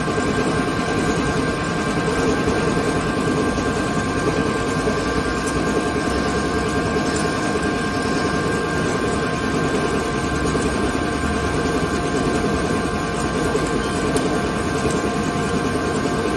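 ALCK6163X1500 CNC lathe running on a test, its chuck spinning with coolant spraying: a steady mechanical drone with a constant whine of several high tones throughout.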